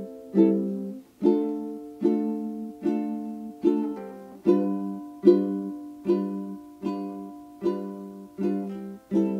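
Background music: plucked chords struck about once every 0.8 seconds, each ringing out and fading before the next.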